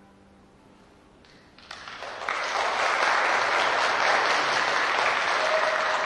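Concert audience applause: after a short hush, a few claps start about a second and a half in and quickly build into steady, full clapping from the seated audience.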